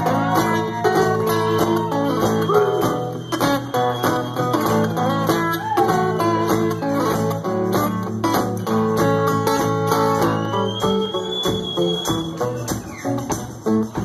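Live acoustic band music, guitar-led with a bluesy feel, playing continuously over a steady bass line, with some notes sliding in pitch.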